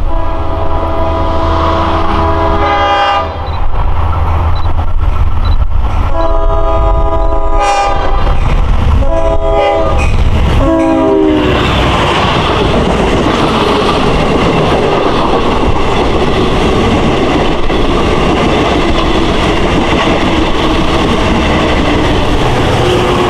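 LIRR DM30AC dual-mode locomotive sounding its multi-tone horn in four blasts, long, long, short, long, the grade-crossing signal, over the low rumble of its diesel engine. The last blast drops in pitch as the locomotive passes. Then its double-deck coaches roll by with a steady rumble and clatter of wheels on rail.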